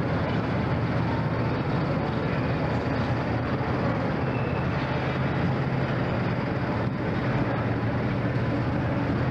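Steady drone of running engines, an even mechanical hum with no clear revving or pauses.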